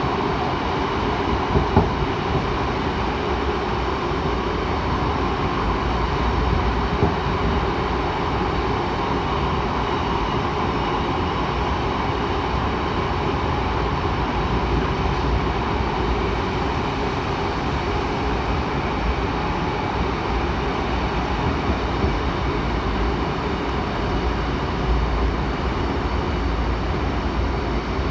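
Seoul Metro 7000 series electric subway train running steadily between stations, an even rumble and hiss with a faint steady whine, and a couple of brief knocks about two seconds in.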